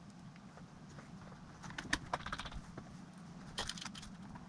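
Faint, scattered small clicks and light rattles from handling the plastic case parts and screws of a Dell Latitude CPi laptop during reassembly, a cluster of them about two seconds in and another near the end.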